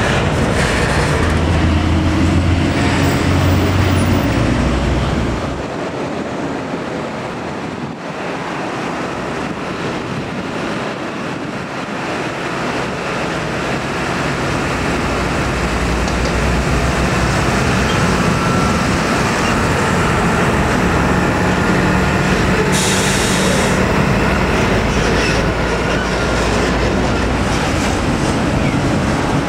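Heavy diesel tractor-trailer trucks passing slowly, with engine running and tyres rumbling. The sound dips after about five seconds, then builds again as a UD tractor unit hauling a tarped load approaches and passes. There is a brief hiss about 23 seconds in.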